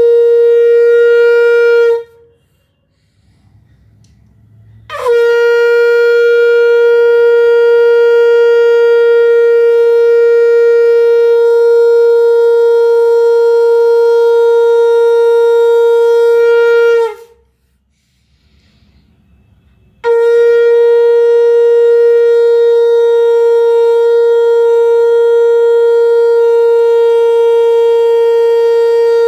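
Conch shell (shankh) blown in long, steady single-pitch blasts: one blast ends about two seconds in, a full blast of about twelve seconds follows after a pause of about three seconds, and another begins near the end after a similar pause. Each blast slides quickly into its note at the start.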